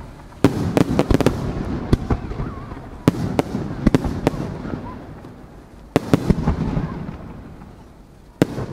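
Aerial firework shells bursting in a string of sharp bangs, about a dozen in clusters spaced over several seconds, each trailing off in a long echoing rumble.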